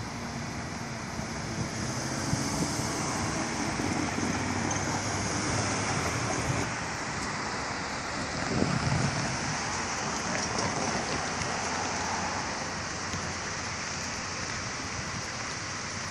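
Road traffic driving over the railroad crossing: a steady rush of tyres and engines with wind on the microphone, and one vehicle passing louder about eight and a half seconds in.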